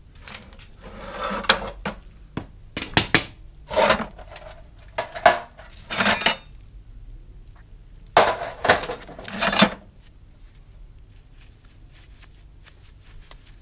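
Scrap metal pieces clanking and scraping against each other in a bucket as it is rummaged through and a rusty ball peen hammer is dug out, in several short bursts of clatter.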